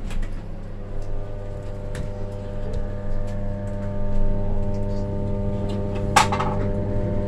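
Class 317 electric multiple unit heard from inside the carriage while moving slowly: a steady electrical hum of several tones, with scattered clicks and knocks and one sharp knock about six seconds in.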